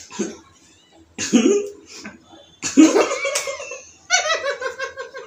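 People laughing in several short bursts, the last one near the end a quick run of 'ha-ha' pulses.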